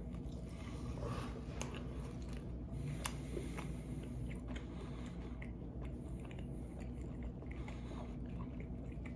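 A person chewing a big mouthful of food: faint, scattered wet mouth clicks over a low steady room hum.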